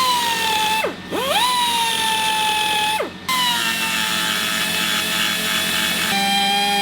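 Small high-speed rotary grinder whining in short runs: it spins up, runs for a second or a few, winds down and starts again, three times. Its pitch drops a little about six seconds in as it bites into the metal. It is grinding old braze out of a cracked fork brace joint to clean it for welding.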